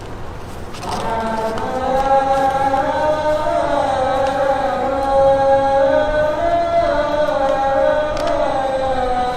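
A single voice chanting unaccompanied, holding long notes that bend slowly up and down; it enters about a second in.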